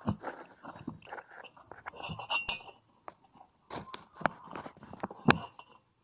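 Irregular clicks, taps and knocks of small plastic and metal parts of a household electrical switch being handled and fitted together, with sharper knocks about two and a half seconds in and about five seconds in.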